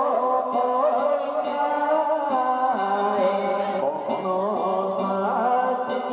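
Music: a melody of long held notes that waver in pitch, shifting to a lower pitch about three seconds in.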